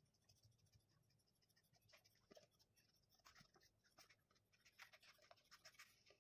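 Faint snips of scissors cutting through a craft foam sheet: many short, irregular cuts in quick succession.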